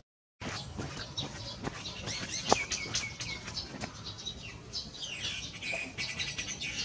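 Many small birds chirping and calling at once, quick high chirps and sweeps that keep overlapping. There is one sharp click about two and a half seconds in.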